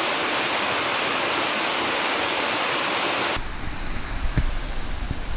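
Steady rush of a large waterfall. About three seconds in, it cuts off abruptly and gives way to irregular low buffeting of wind on the microphone, with a few short knocks.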